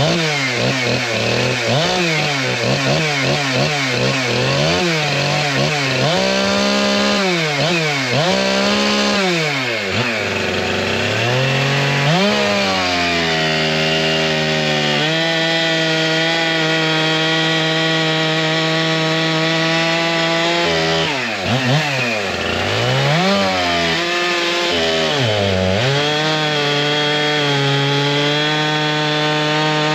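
Two-stroke chainsaw with a 32-inch bar, 7-tooth sprocket and full-skip chain, cutting wood. The engine revs up and drops back over and over, holds a steady high pitch for about six seconds midway, then dips twice and climbs again near the end.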